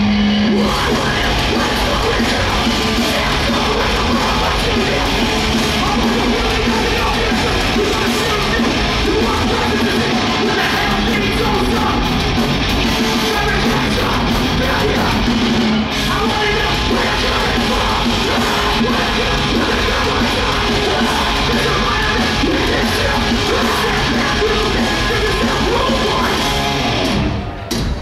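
Hardcore punk band playing live: distorted electric guitars, bass and drums with shouted vocals, heard loud from within the crowd. The music breaks briefly near the end.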